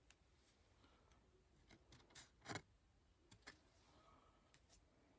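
Near silence with a few faint clicks and rustles of trading cards being handled and flipped, the loudest pair about halfway through.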